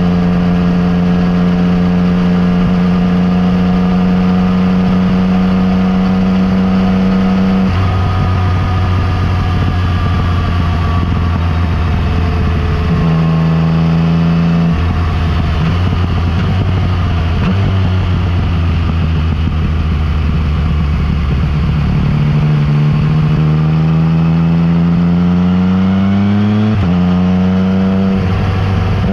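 Yamaha MT-09 Tracer's inline three-cylinder engine through an Akrapovič exhaust, heard while riding. It holds steady revs, changes pitch abruptly about eight seconds in, then varies with the throttle. In the second half it climbs in revs for several seconds before dropping back near the end.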